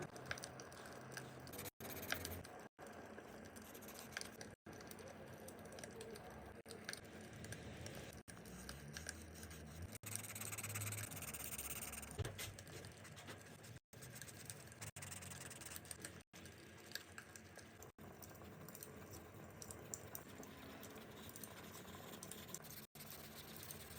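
Faint scratching of coloring strokes on paper over the small pops and crackle of a fireplace, broken by a few brief moments of silence.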